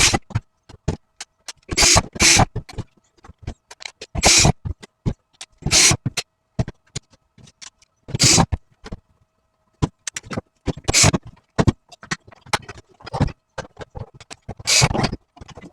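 Irregular clicks, knocks and scrapes of hard plastic parts being handled and worked on, with a louder clatter every couple of seconds.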